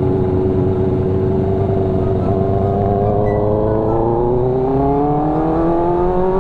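Sport motorcycle with a loud aftermarket exhaust, its engine running at steady cruising revs and then rising gradually in pitch over the last few seconds as the bike picks up speed.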